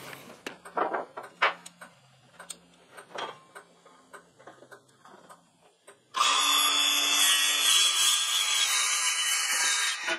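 A few light knocks and clicks, then about six seconds in a cordless circular saw starts and cuts through a wooden board at a steady pitch for about four seconds. It stops near the end.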